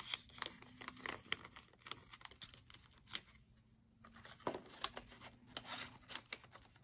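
Paper banknotes and a laminated plastic cash envelope rustling and crinkling as bills are handled and tucked in, with many light clicks and taps. The handling pauses briefly about halfway through.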